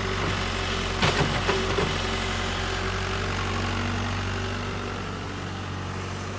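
Kobelco excavator's diesel engine idling steadily, with a few sharp knocks between about one and two seconds in.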